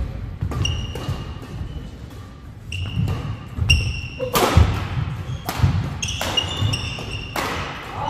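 Badminton doubles rally on an indoor court: a string of sharp racket hits on the shuttlecock, the loudest an overhead smash about four and a half seconds in, with short shoe squeaks and footfalls on the wooden floor between shots.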